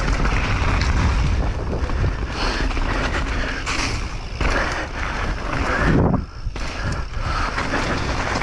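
Mountain bike riding down a rough trail: wind buffeting the camera microphone over a constant rumble and rattle from the tyres and bike, easing briefly about six seconds in.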